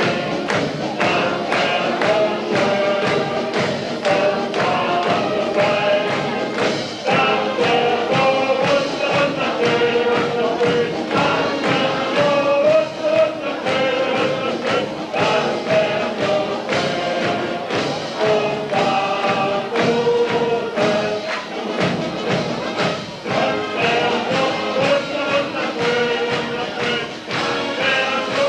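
Live band music with a steady beat at a carnival session, playing without a break.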